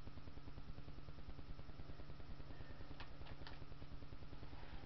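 Steady low electrical hum and hiss, with three quick faint clicks about three seconds in from items being handled.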